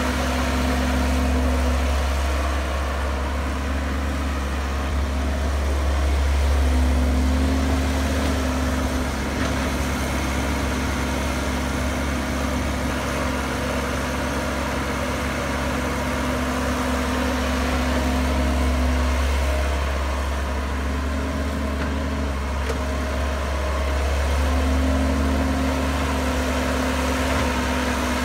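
Caterpillar hydraulic crawler excavator's diesel engine running steadily while it digs and loads soil, its note swelling and easing every several seconds as the arm and bucket are worked.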